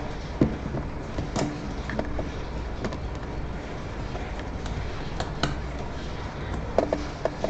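Naked mole-rats moving and bumping against each other inside a clear plastic tunnel tube: scattered light clicks and knocks over a steady low hum.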